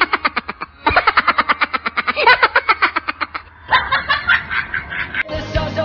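A person laughing hard in a long run of quick, evenly spaced ha-ha pulses that break off about three and a half seconds in, followed by more broken laughing. Music comes in near the end.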